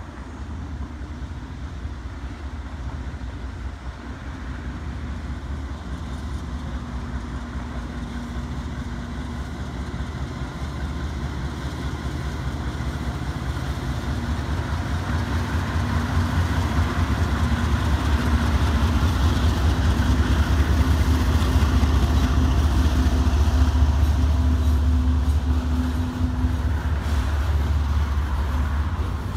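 Diesel locomotive engine rumbling with a steady low hum, growing louder over the first two-thirds as it draws closer, then easing off slightly near the end.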